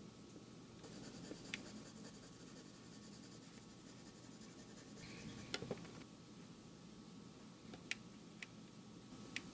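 Colored pencil scratching faintly across drawing paper as it shades, with a few sharp ticks along the way.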